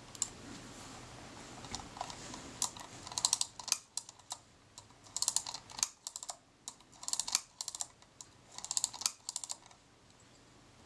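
Kodak Retina IIa film advance mechanism ratcheting as the advance lever is stroked: four short bursts of rapid clicks about two seconds apart. The ratchets are freshly greased and the lever has a very good positive action.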